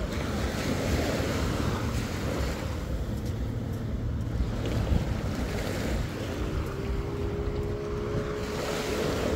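Small waves washing up on a sandy shore, with wind buffeting the microphone. From about six and a half seconds in, a steady engine hum joins.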